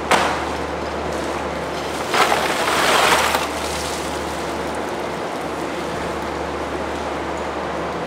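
Ice cubes tipped from a crate into a tub of sausages in water: a sharp knock just after the start, then a rushing clatter of ice for about a second and a half, over a steady low factory hum and hiss.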